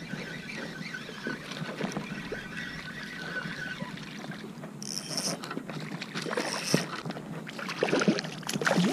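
Water splashing as a hooked speckled trout thrashes at the surface while being reeled in, with wind and lapping water around it. The splashing grows louder and more frequent near the end as the fish is brought close.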